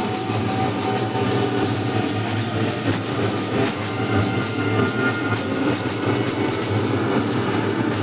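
Music with a fast, even drumbeat throughout.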